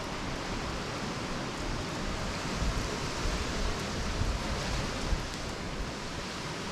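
Steady rushing of water, an even noise that does not break or change.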